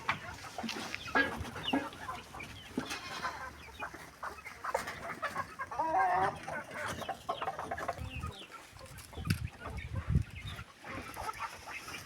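Chickens clucking, a run of short scattered calls with a longer wavering call about six seconds in.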